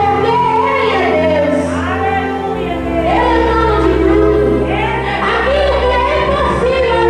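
Worship music: singing voices carry a melody over sustained low accompaniment notes, with a chord change about two and a half seconds in.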